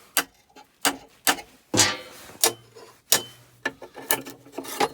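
Sharp metal-on-metal taps, about eight, irregular and roughly half a second apart, with one heavier blow near the middle: hammer taps persuading a stuck part out of a windscreen wiper motor's housing during dismantling.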